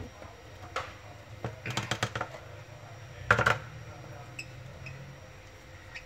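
Baby lovebird chicks moving on a wooden floor: irregular clicks and taps, with a quick cluster about two seconds in and the loudest knocks a little after three seconds, and two faint short high peeps near the middle.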